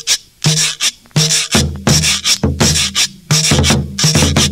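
Recorded cumbia playing over a sound system: a steady percussion beat, with a bass line coming in about a second and a half in.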